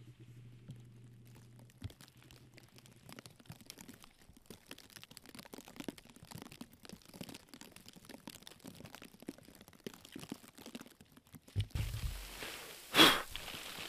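Continuous fine crackling and rustling, with a low hum in the first few seconds. Near the end come a few low thumps, then one loud, sharp noise about a second before the end.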